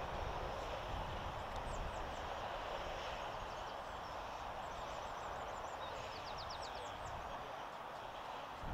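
Small birds chirping in short, high, falling notes, with a quick run of chirps about six seconds in, over a steady outdoor background hiss and a low rumble.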